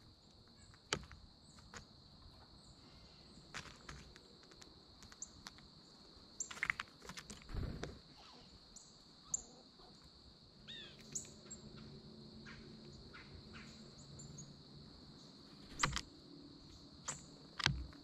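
A few sharp knocks and clicks of blue jays landing on a feeder tray and grabbing peanuts in the shell, the loudest two near the end. Beneath them runs a steady high insect drone, with faint bird chirps and one short falling call about halfway through.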